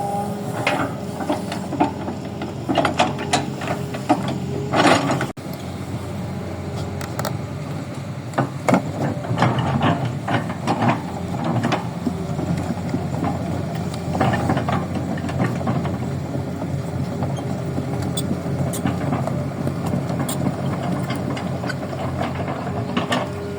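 Toy Kobelco excavator working in dirt: irregular clicking and ratcheting of its plastic mechanism, with scraping and rattling of soil over a low steady hum.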